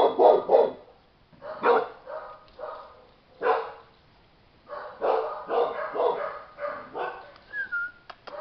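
Mother chow chow barking repeatedly: three quick barks at the start, a few more, then a longer string of barks in the second half.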